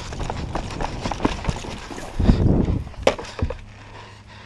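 Irregular crackling and wooden knocks. About two seconds in there is a louder dull rustling burst, and two sharp knocks follow about a second later.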